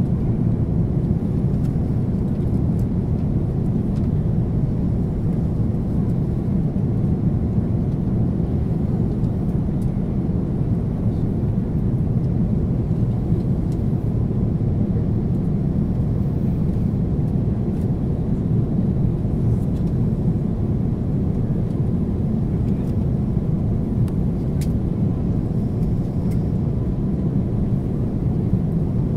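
Steady cabin noise of a jet airliner descending on approach, heard inside the cabin: the jet engines and rushing air make a deep, even rumble that does not change.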